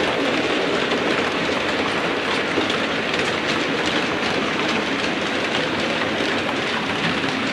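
Model railway train running along the layout's track: a steady rolling rumble with many small clicks of the wheels over the rail joints.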